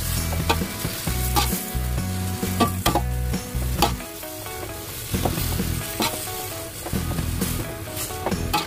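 Kemangi leaves and sliced beef sizzling in a metal wok while a metal spatula stirs them, clacking and scraping against the pan in irregular strokes.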